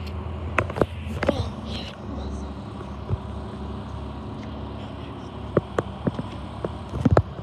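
Garbage truck's engine running with a steady low hum while it lifts a dumpster, with scattered sharp clanks and knocks, the loudest cluster near the end.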